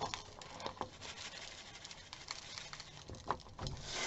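Hands tossing sliced green bell peppers with minced garlic in a bowl: soft, scattered pats and light clicks of the pepper pieces, with a dull knock near the end.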